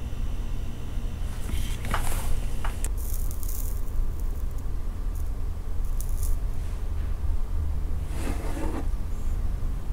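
Low steady background rumble, with a few short rustles and light clicks from hands handling wires and a soldering iron over a car radio's circuit board.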